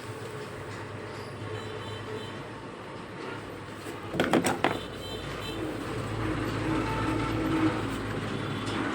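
LED TV speaker with steady hiss and hum as the volume is turned up, a short clatter of clicks about four seconds in, then faint sound from the TV slowly growing louder.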